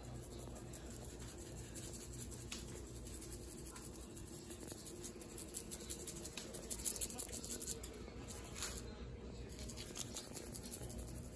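Seasoning shaken from a shaker bottle over a baking dish: quick, scratchy rattling in short runs, busiest about two-thirds of the way through, over a low steady hum.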